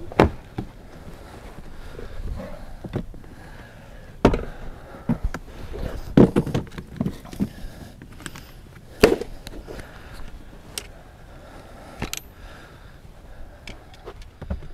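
Footsteps with rustling, irregular thumps and crunches of people walking out through the brush.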